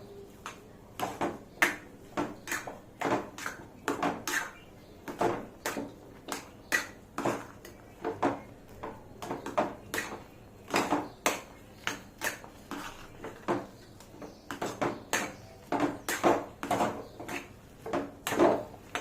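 A spoon stirring rava upma in a cooking pan, clanking against the pan about twice a second in an uneven rhythm, as the semolina mixture is worked after the milk goes in.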